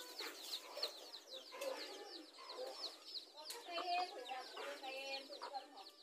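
A brood of newly hatched chicks peeping constantly in quick, high, falling notes, with a hen's lower clucks among them in the second half.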